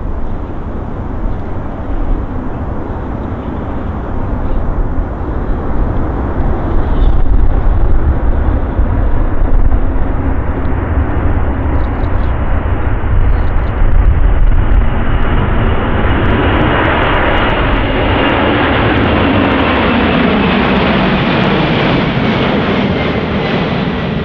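Boeing 747-400's four General Electric CF6 turbofans at take-off power: a distant low rumble during the take-off roll that grows louder and fuller about two-thirds of the way through as the jet climbs overhead. Near the end a high engine whine slowly falls in pitch.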